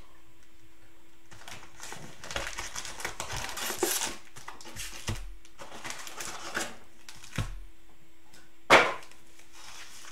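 Cellophane-wrapped Panini Prizm trading card packs crinkling and rattling as they are handled and stacked, then one sharp knock near the end, the loudest sound, as a stack is set or squared on the table.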